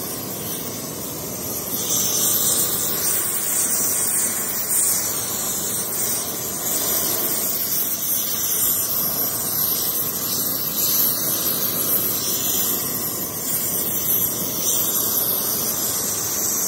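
Gas heating torch burning with a steady hiss, heating a new starter ring gear on a flywheel so that it expands enough to drop onto the flywheel.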